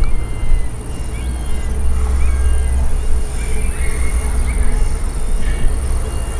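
Outdoor ambience: a low, gusting rumble of wind on the microphone, with birds chirping now and then over a steady high insect hum.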